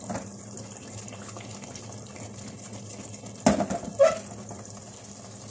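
Metal pot of kebabs in simmering masala gravy being shaken on the stove: a steady wet sloshing, with two sharp knocks of the pot about three and a half and four seconds in.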